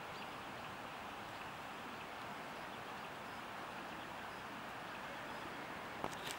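Steady, even hiss of outdoor background noise, with a couple of sharp clicks about six seconds in.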